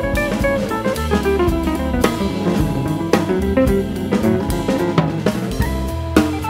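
Background music: an instrumental tune with a drum kit beat.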